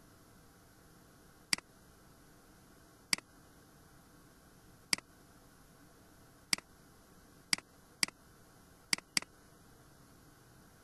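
Computer mouse button clicking: eight sharp single clicks spaced one to two seconds apart, the last four in two quick pairs. A faint steady hiss sits underneath.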